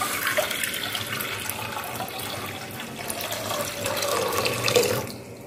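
Water poured from a glass jug into a metal cooking pot, a steady splashing stream that grows quieter and stops about five seconds in.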